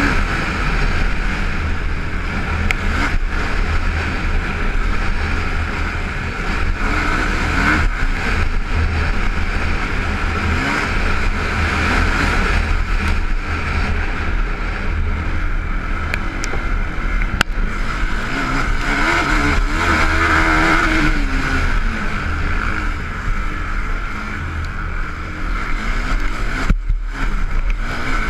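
Can-Am DS450 quad's single-cylinder four-stroke engine running hard at race pace, its pitch rising and falling with the throttle, heard from a helmet camera, with knocks from the rough dirt track. About a second and a half before the end the engine note drops away briefly, as when the throttle is shut.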